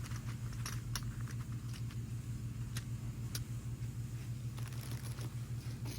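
A steady low hum, with a few light clicks and taps scattered through it, most distinct about a second and a half and three seconds in.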